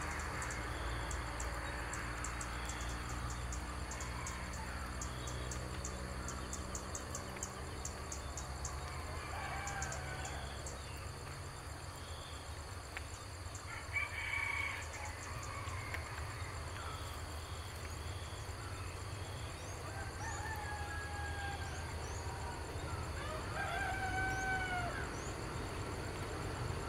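Roosters crowing several times, the loudest call about halfway through and two more near the end, over a steady low rumble.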